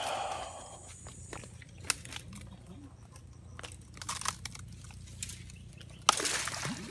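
Dry brush and bamboo stalks crackling and snapping as someone pushes through them on foot, with scattered sharp twig snaps. About six seconds in comes a louder rustling swish, lasting under a second.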